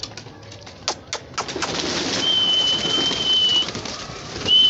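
A flock of domestic pigeons shuffling and flapping their wings as they are herded into a coop, with a few sharp clicks early on. Two long, steady, high whistle-like tones sound in the second half.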